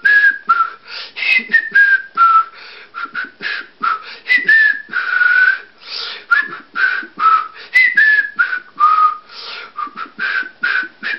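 A person whistling a tune: a melody of short notes that keeps stepping down from high to lower in repeated phrases, with breathy rushes of air between the notes.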